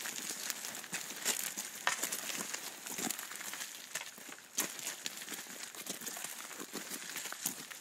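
Irregular rustling and crackling with many scattered sharp clicks over a steady hiss.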